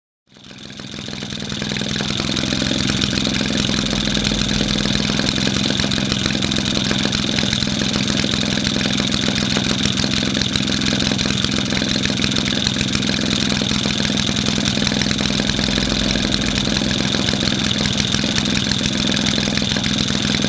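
1946 Maytag model 72D twin-cylinder two-stroke washing-machine engine running steadily at about 1350 rpm, a fast even stream of firing pulses. It fades in over the first couple of seconds.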